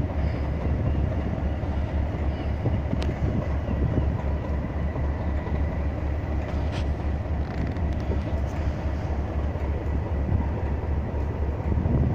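Class 37 diesel locomotive idling while standing, its English Electric V12 engine giving a steady low pulsing rumble.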